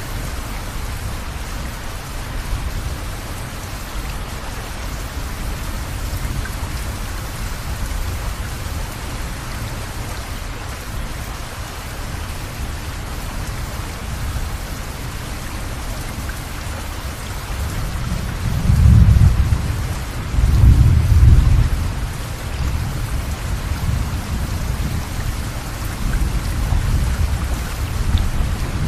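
Steady rain hissing, with thunder rumbling low in two heavy peals about two-thirds of the way through and a softer rumble near the end.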